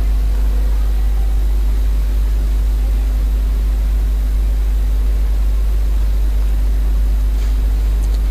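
Steady low hum with a thin hiss over it, unchanging throughout, with no voice.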